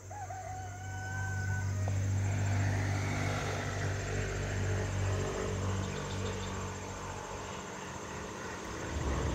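A steady low hum, loudest in the first half, with a continuous high-pitched insect buzz over it.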